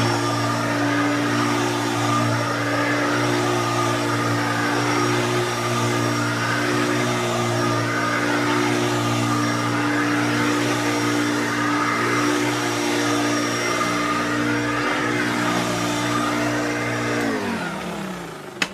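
Hoover Turbo Junior upright vacuum cleaner's motor and brush roll running steadily and pretty smooth, on new brush roll bearings. About seventeen seconds in it is switched off and winds down, its pitch falling.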